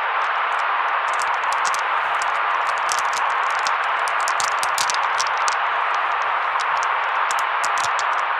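A white-noise track: a steady, even hiss with a muffled, mid-pitched colour and no low rumble. Short, faint crackles sit on top at irregular intervals, several a second, like static.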